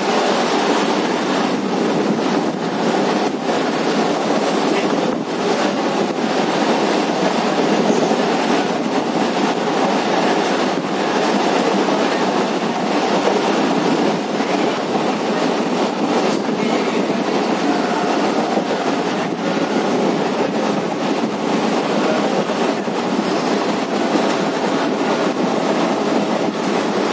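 Electric suburban local train running at speed, heard from on board: a steady rumble and rush with occasional faint wheel clicks over rail joints, and a faint whine in the second half.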